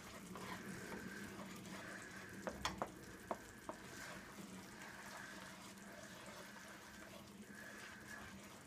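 Tomato sauce simmering and lightly sizzling in a nonstick frying pan as a plastic spoon stirs it. A few light clicks of the spoon against the pan come between about two and a half and four seconds in.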